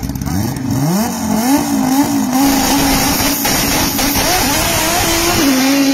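Five-cylinder engine of an AWD Audi drag car revving up sharply about a second in, then held at high revs with the pitch wavering up and down while the car sits staged at the start line.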